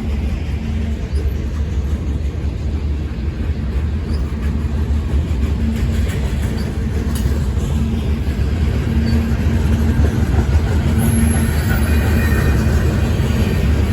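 Long CSX manifest freight train rolling past, a steady rumble of wheels on rail that grows a little louder about halfway through.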